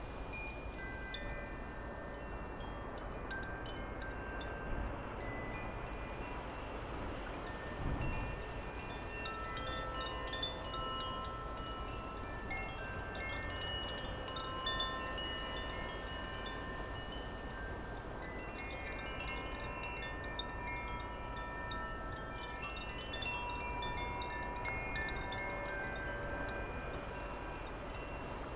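Metal wind chimes ringing in a breeze: many overlapping tones at different pitches, struck irregularly and left to ring, over a low wind rumble on the microphone.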